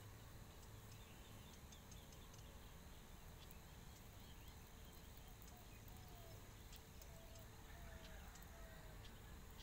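Near silence: faint background noise with a steady low hum and, in the second half, a few faint short chirps like distant birds.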